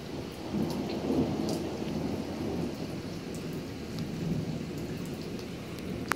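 Thunder rumbling, loudest in the first couple of seconds and then trailing off, over steady rain with scattered drops ticking close by.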